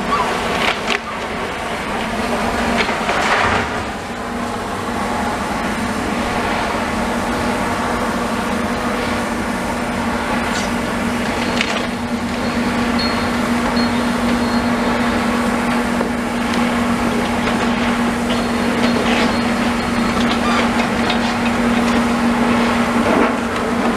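Demolition machinery at work: a heavy machine's engine drones steadily, over scattered cracks and knocks of timber and rubble being broken, the loudest about three seconds in.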